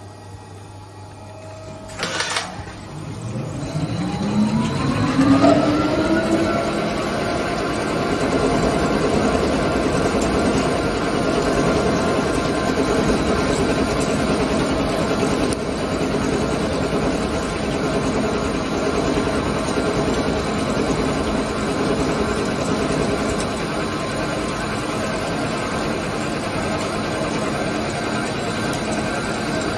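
ALCK6163X1500 CNC lathe starting its spindle. A clunk comes about two seconds in, then a rising whine over about four seconds as the chuck spins up, settling into a steady running whine with coolant spraying.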